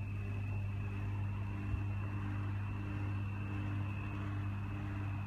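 A steady low mechanical hum with a thin, steady high whine above it, and one brief bump a little under two seconds in.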